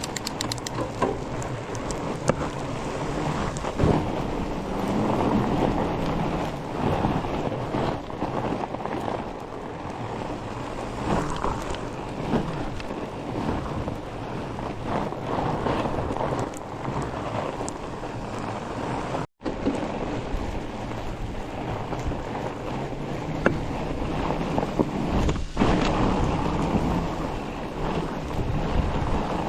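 Fat bike riding over crunchy, hard-packed snow: a steady rush of wide tyres crunching on the snow and wind buffeting the microphone, with scattered rattles and knocks from the bike. The sound cuts out for an instant about two-thirds of the way through.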